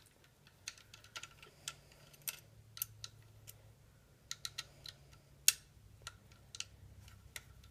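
Small, irregular metal clicks and ticks of a hex wrench turning a bolt as a rifle stock's mounting bolts are tightened, with one sharper click about five and a half seconds in.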